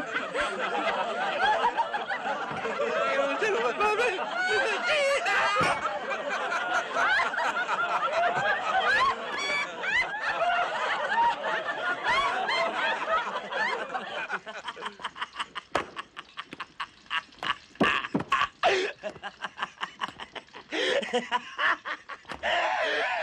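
Hearty human laughter, dense and unbroken at first, then breaking up about two-thirds of the way through into short, rapid 'ha-ha' pulses with brief gaps, and swelling again near the end.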